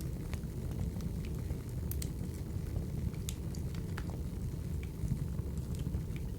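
Crackling wood fire: a steady low rumble of burning logs with scattered sharp pops and crackles.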